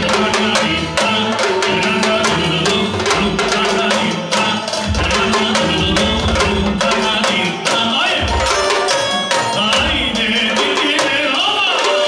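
Live band music: a singer on a microphone with clarinet, and a fast, steady beat on a set of drums struck with sticks.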